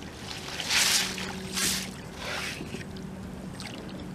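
Water splashing in three short bursts, about a second and then a second and a half and two seconds in, over a steady low hum.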